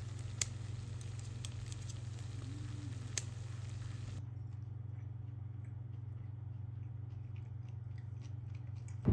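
A steady low hum with a few sharp clicks of metal kitchen utensils against a frying pan, the loudest in the first three seconds, then fainter scattered ticks.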